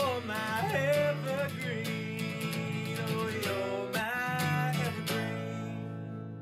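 Strummed acoustic guitar music, ending about five seconds in on a final chord that rings out and fades.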